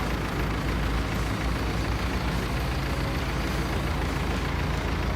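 Heavy logging truck's engine running steadily under load, with a deep low rumble.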